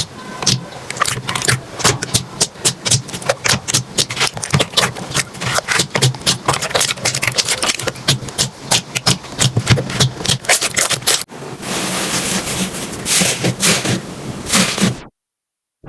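Slime being squished and worked, a dense run of small crackling clicks and pops. About eleven seconds in it changes to a smoother squishing sound, then cuts off suddenly near the end.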